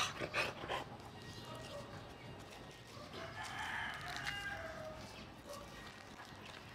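A few sharp scuffing clicks in the first second, then a drawn-out animal call lasting over a second, about three seconds in.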